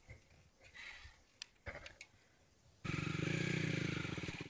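A motorcycle engine running as the bike rides up a rocky dirt trail. It cuts in suddenly and loud about three seconds in, after a few faint clicks.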